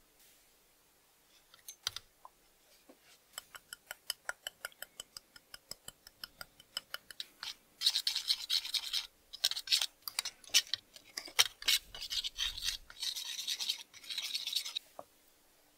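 Steel palette knife scraping and stirring sawdust and wood glue on a metal jar lid, in rasping strokes with short pauses. Before the mixing, a run of quick light ticks, about six a second.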